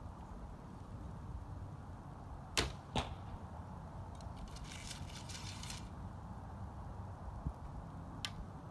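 A fiberglass-limbed Damon Howatt Hunter recurve bow being shot: a sharp snap of the string on release about two and a half seconds in, then a second crack less than half a second later as the arrow strikes the target. A rustle follows as the next arrow is pulled from the hip quiver, and a light click near the end as it is nocked.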